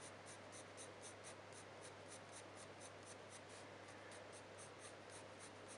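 Coloured pencil (Caran d'Ache Pablo, salmon) scratching lightly on hot-pressed watercolour paper in quick, short fur strokes, about five a second. The strokes are faint, with a low steady hum beneath them.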